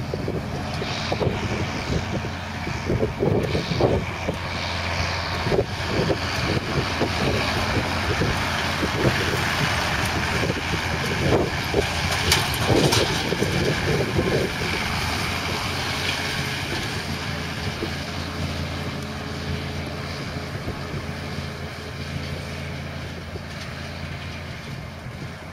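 Diesel engine of a John Deere tractor running steadily as it pulls a rotary hay rake, with gusts of wind buffeting the microphone. The engine hum grows gradually fainter in the second half.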